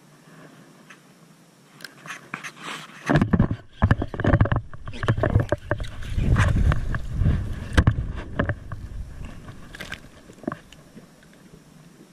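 A hooked largemouth bass is reeled to the boat and lifted out: a few seconds of splashing at the surface mixed with rough knocks and handling thumps from the rod and reel, loudest in the middle and fading toward the end.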